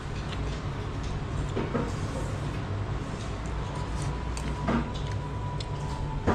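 Chopsticks clicking against a porcelain noodle bowl and plate a few times, over a steady low hum.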